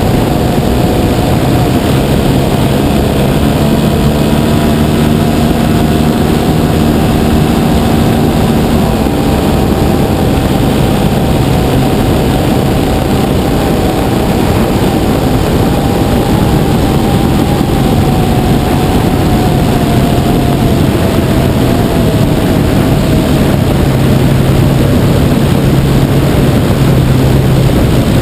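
Engine and propeller of a 60%-scale RC Piper Cub running steadily in flight, heard up close from a camera mounted on the fuselage, with wind rushing over the microphone. The engine's pitch dips slightly about two-thirds of the way through.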